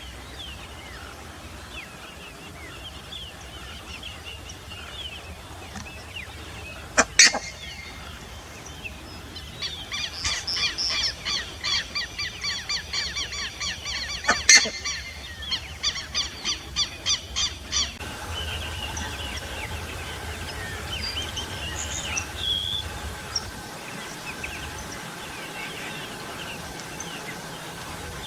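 Buff-necked ibises (curicacas) calling: a long run of loud repeated calls, several a second, from about a third of the way in until just past the middle, with two sudden loud notes along the way. Later there are only scattered small bird chirps.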